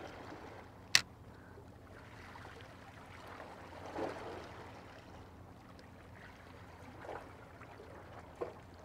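Faint lapping of small waves against breakwater rocks, swelling slightly about four seconds in, with a single sharp click about a second in.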